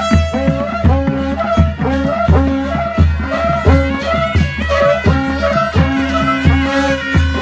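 Instrumental break of a Nepali folk song: a wind-like melody line over a steady bass and drum beat, about three beats a second.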